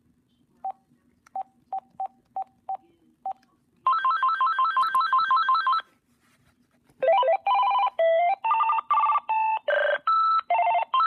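AT&T CL82359 cordless phone handset: six short key beeps, then ringer tone previews from its speaker. First comes a rapid electronic warble ring for about two seconds, then, after about a second's pause, a melodic ringtone of short changing notes.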